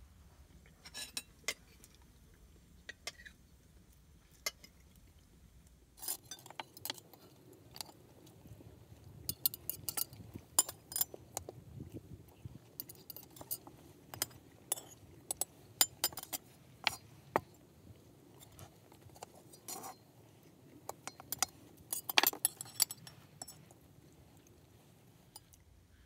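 Cutlery clinking against plates, metal pots and glasses during a meal: scattered sharp clinks, sparse at first and coming much thicker from about six seconds in.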